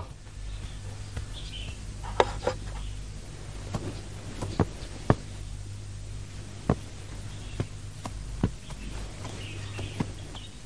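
Quiet location ambience with a steady low hum, broken by scattered soft knocks and footsteps at irregular intervals.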